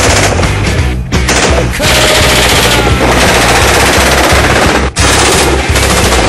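MG3 7.62 mm belt-fed machine guns firing, mixed with loud heavy rock music. The sound is dense and continuous, with short breaks about a second in and near five seconds.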